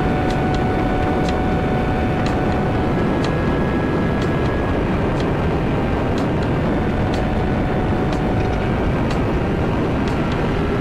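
Sportbike at high speed in sixth gear, heavy steady wind rush with a faint engine note underneath and a few faint scattered ticks.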